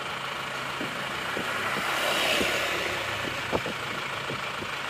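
Isuzu Panther Touring diesel engine idling steadily at the tailpipe, freshly rebuilt and running smoothly, like a petrol car. A broad hiss swells and fades about two seconds in, and there is a light click a little later.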